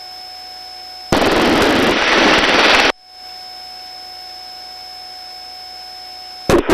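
Helicopter intercom audio: a steady background hum with faint steady whine tones. About a second in, a loud rush of noise from an open microphone switches on, lasts about two seconds, and cuts off abruptly. Near the end come a few short, loud crackling bursts.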